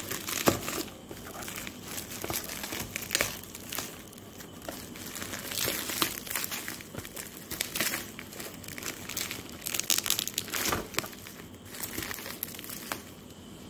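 Bubble wrap crinkling and crackling as hands pull it off a cardboard box. The crackles come in irregular bursts and stop about a second before the end.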